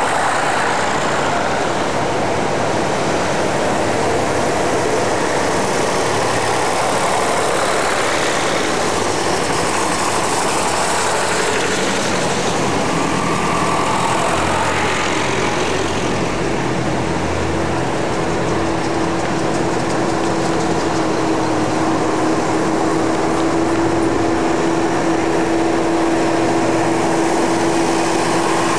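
Engines of old farm tractors driving past one after another, running steadily, with a steady engine note held through the second half.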